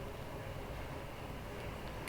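Faint, steady background noise with a low hum: room tone, with no distinct event.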